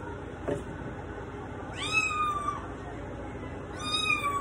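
Kitten of about nine weeks meowing twice while being bathed in a sink, two high-pitched cries about two seconds apart. The cries are protest at being washed, which she calls "calling for help".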